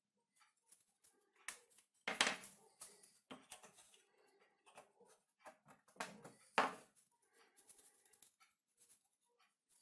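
Hands handling small objects at close range: scattered light clicks, taps and rustles, with two louder rustling knocks about two seconds and six and a half seconds in.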